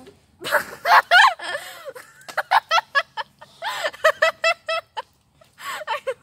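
A girl laughing hard: breathy gasps between runs of quick ha-ha pulses, about five a second.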